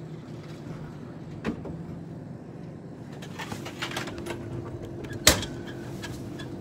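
Snack vending machine dispensing a selection: a click, then a run of clicks and rattles with a steady motor hum starting about three and a half seconds in, and a single sharp knock at the pickup slot a little after five seconds.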